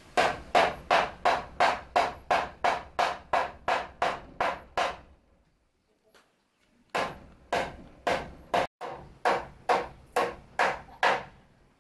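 Hammer driving nails into wooden boards: a run of steady blows about three a second, a short break just past the middle, then a second run of blows.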